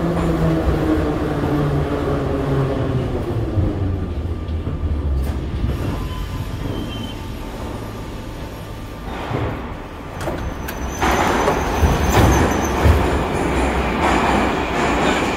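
81-717/714 metro train slowing to a stop at a station platform: its motor whine falls in pitch over the first few seconds, then the train stands with a low hum. About ten to eleven seconds in, the doors open and the louder noise of the platform comes in.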